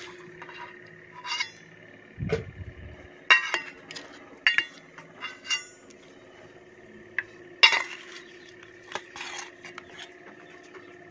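A steel serving spoon clinking and scraping against a steel bowl and plates in a series of sharp, ringing clicks as curry is dished out onto rice, with one duller knock about two seconds in. A faint steady hum runs underneath.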